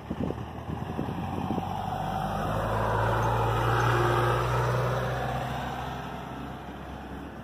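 A motor vehicle driving past, its engine and tyre noise swelling to a peak about four seconds in and then fading away, with a low engine hum underneath.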